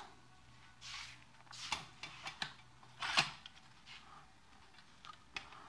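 Handling noises from a loudspeaker tilt adaptor being fitted and worked at the top of a tripod speaker stand: a few short scrapes and clicks, the loudest about three seconds in.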